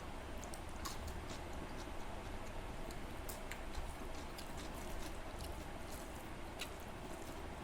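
Close-miked eating: irregular small wet clicks and smacks of a mouth chewing food, over a steady low background hum.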